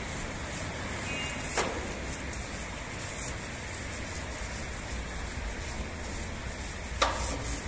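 Long-handled brush scrubbing the foamy side of a fuel tanker, over a steady low rumble. Two short sharp clicks, about a second and a half in and near the end.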